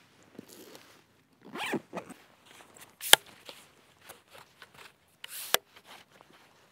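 Zipper of a camera backpack being pulled in short runs amid gear handling, with one sharp click about three seconds in and a short rush of noise near the end.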